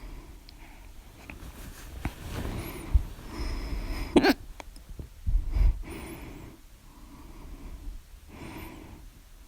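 A person breathing heavily in and out between hiccups, with one sharp, loud hiccup about four seconds in and a couple of smaller catches around it.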